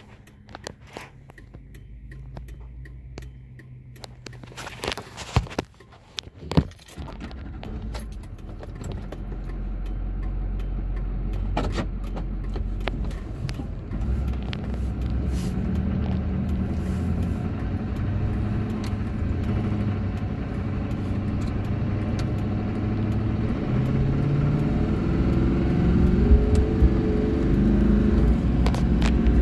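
A few clicks and knocks, then the 2002 Chevrolet Silverado's Duramax 6.6 L V8 turbodiesel heard from inside the cab as the truck drives and accelerates. Engine and road noise grow louder, and the engine note rises in steps through the second half.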